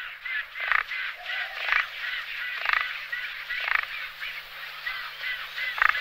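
Birds calling: a dense chatter of short, quick chirps, with a louder, harsh honk-like call about once a second.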